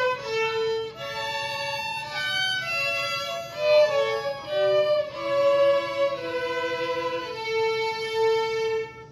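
A group of five children's violins, bowed together, playing a tune with more than one note at a time. The melody moves through short notes and ends on a long held note that cuts off abruptly at the very end.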